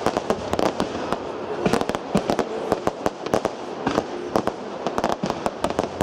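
Aerial fireworks going off in quick succession: many sharp bangs and pops, several a second and irregularly spaced, over a steady hiss.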